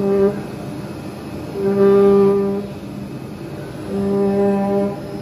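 CNC oscillating knife cutting tool buzzing at one steady pitch in bursts of about a second while it cuts sound insulation cotton: briefly at the start, then twice more, with a lower mechanical rumble between the bursts.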